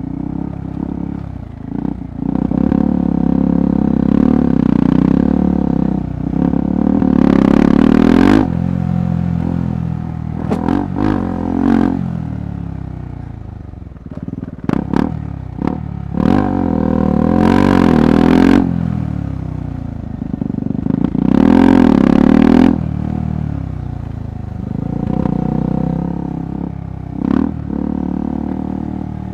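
KTM 390 Adventure Rally's single-cylinder engine being ridden off-road, the throttle opened and closed over and over, with three stronger bursts of acceleration. Clattering knocks come through as the bike goes over rough ground.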